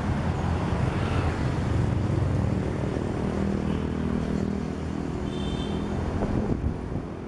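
Road traffic: vehicle engines running and passing, a steady low rumble that swells around the middle and eases toward the end.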